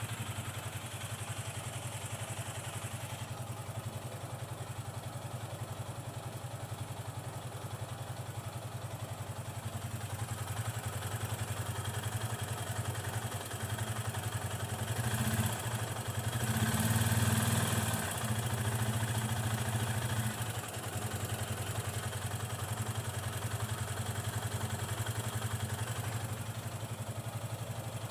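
Yamaha FZ25's single-cylinder engine idling with a ticking, coin-like rattle. The owner took it for a valve clearance problem, but it persists after the valves were adjusted. The revs rise briefly about halfway through, then settle back to idle.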